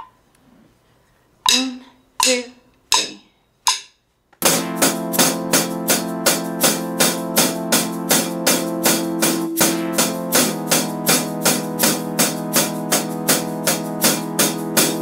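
Four count-in clicks about three-quarters of a second apart, then a strummed guitar backing track comes in with steady eighth-note snare drum strokes, about two to three a second, played along with it.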